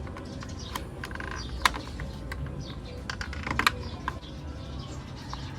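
Scattered light clicks and taps of hand tools working on a car side mirror's plastic housing and screws, several close together about three and a half seconds in, over a low steady hum.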